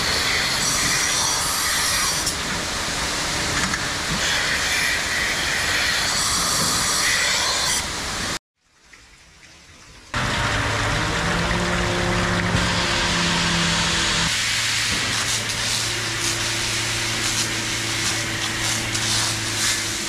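Rotary milking parlour machinery running: a dense, steady hiss of air and water. It breaks off for a couple of seconds after about eight seconds. When it returns it carries a steady low motor hum underneath.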